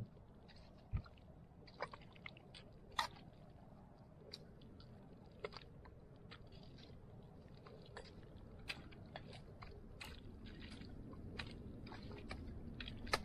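Wet squelches and sharp irregular clicks of soft tidal mud under rubber boots and a long-handled digging hoe, over a low steady rumble of wind on the microphone.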